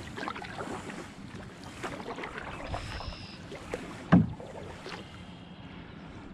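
Canoe paddle strokes: water splashing and dripping off the paddle blade beside the hull. About four seconds in there is a single sharp knock, the loudest sound.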